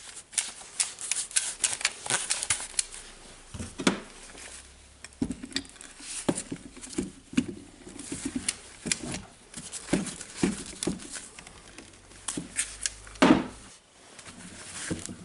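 Workshop handling sounds: a steel hex key clinking and clicking against a metal drill chuck, mixed with the rustle of work gloves. There are quick clusters of small clicks, and one louder knock near the end.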